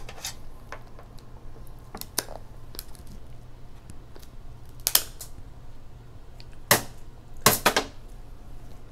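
Kitchen shears cutting through a cooked king crab leg's shell: a handful of sharp cracks and snaps, the loudest two close together about three-quarters of the way through.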